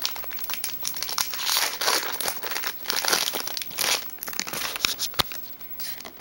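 Foil trading-card booster pack being torn open and crinkled by hand, an irregular run of crackling and rustling.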